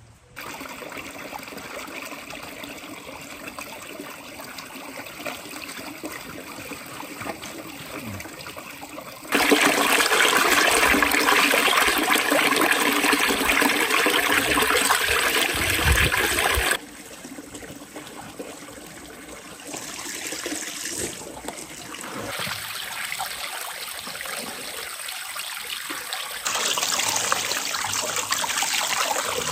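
Running water pouring from a spout into a steel basin of water holding fish pieces, a steady splashing that is loudest for several seconds from about a third of the way in. Near the end, hands rinse whole fish under the stream, splashing in the basin.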